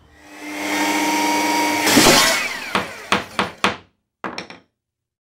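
Short logo sound effect: a whirring, motor-like power-tool sound builds to a peak about two seconds in, then a run of sharp knocks follows. It ends abruptly in dead silence.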